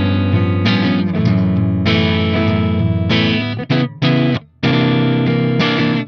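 Soloking MT-1 Classic electric guitar with humbuckers played with a clean tone: chords strummed and picked, ringing out, with two brief muted breaks a little past the middle.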